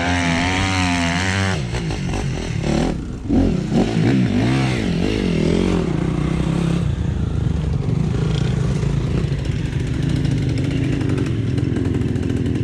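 RXF 150 pit bike engine revving hard. The pitch rises and falls with the throttle between about three and six seconds in, then holds a steadier note.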